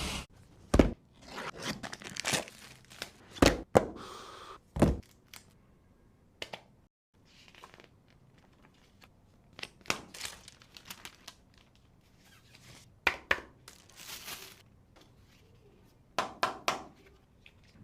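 A smartphone's retail box being opened by hand: plastic wrap and packaging tearing and crinkling, with sharp clicks and knocks of the cardboard box, in scattered bursts with a quieter pause in the middle.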